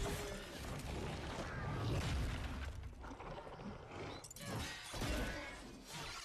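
Movie fight-scene sound effects: a dense, noisy clash of scuffling, with a few sharp hits and swishes between about three and five seconds in.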